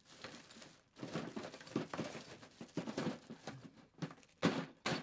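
Crinkling and rustling of crafting materials being handled, in irregular strokes, with two sharper, louder crackles near the end.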